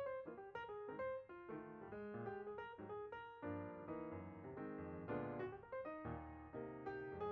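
Background music: a piano playing a melodic line of quick, evenly struck notes over bass notes.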